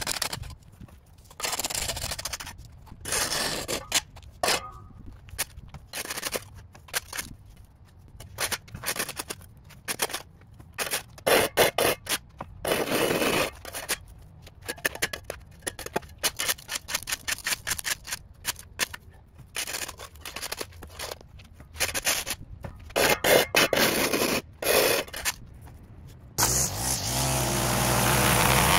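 Repeated short, irregular scraping strokes of a tool working soil against pavement. About 26 seconds in, a small gas engine starts and runs steadily.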